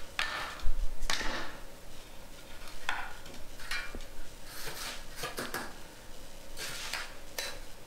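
A trowel scraping and smoothing damp sand-and-cement deck mud in a series of short, irregular strokes, with one dull thump under a second in.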